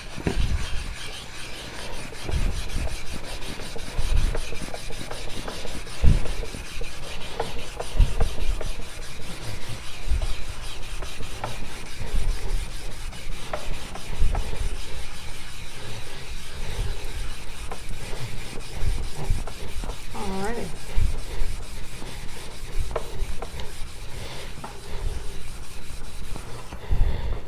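Shigefusa Swedish carbon steel knife blade stroked back and forth on a wet 6000-grit water stone, a continuous gritty scraping that raises slurry, with soft knocks every second or two.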